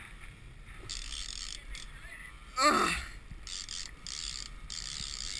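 Daiwa fishing reel being cranked hard in short bursts, gears and handle ratcheting as line is winched in on a hooked albacore under load. About halfway through comes a brief, louder falling glide in pitch.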